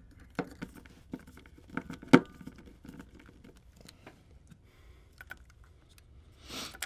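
Small clicks and knocks of a guitar pedal's circuit board and metal enclosure being handled and fitted together, the sharpest knock about two seconds in, with a short rustle near the end.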